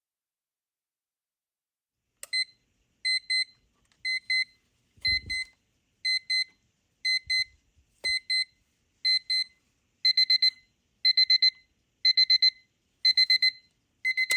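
The alarm of a TWEMCO AP-28 flip clock going off on test, now working: a high electronic beep, at first in pairs about once a second, then about ten seconds in changing to louder, quicker bursts of four. A couple of soft knocks fall between the beeps.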